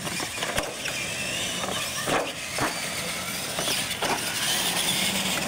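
Radio-controlled monster trucks racing over a ramp track, their motors whining up and down in pitch with the rush of tyres on concrete, broken by several sharp knocks as the trucks hit ramps and land.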